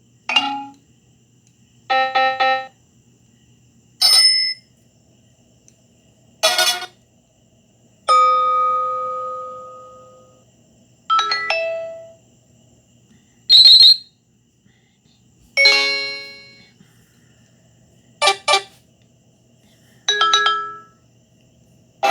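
BlackBerry Bold 9000 alert tones played one after another: about ten short electronic chimes and jingles, each a second or less, spaced roughly two seconds apart with silence between. One, about eight seconds in, is a longer tone that rings out over about two seconds.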